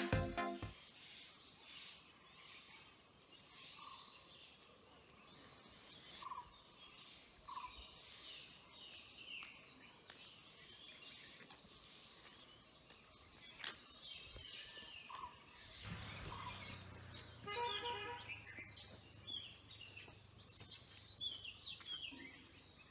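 Several birds chirping and calling over faint outdoor background noise, with a richer-toned call about three-quarters of the way through. From about two-thirds of the way in, a steady low hum joins.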